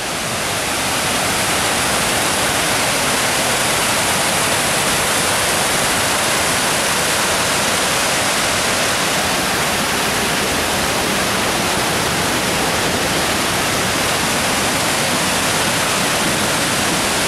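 Waterfall crashing: a loud, steady rush of falling water.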